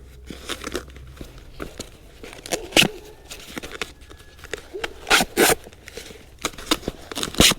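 Sticky tape being pulled off the roll and wrapped around a drain-pipe union, in uneven ripping strokes: one about three seconds in, a pair around five seconds in, and the loudest near the end.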